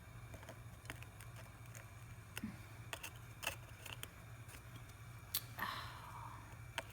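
Faint, scattered light clicks and taps of metal tweezers nudging small gold pieces on a soldering board, about six in all, over a steady low hum.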